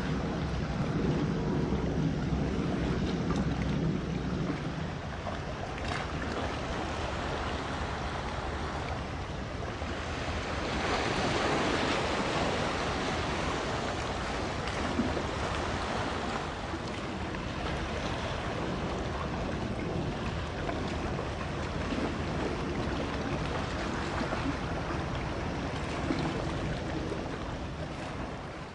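Wind on the microphone and waves washing along the shore, with a low engine drone in the first few seconds. The rush swells louder for a second or two around the middle.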